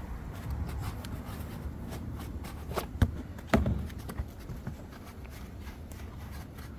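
Rustling and handling of foam packing and plastic parts as an electric scooter's handlebar is unwrapped and fitted, with many small clicks and two sharp knocks a little after three seconds in.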